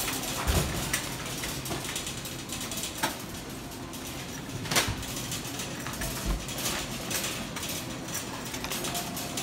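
Wire shopping cart rolling over a hard store floor, its wheels and metal basket rattling steadily, with a few louder clunks, the loudest a little under five seconds in.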